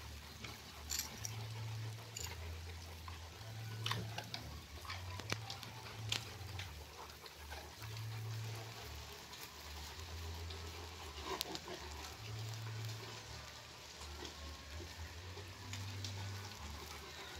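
Rottweilers panting and moving about on wet concrete, with scattered clicks and scuffs of claws and paws, over a low background hum.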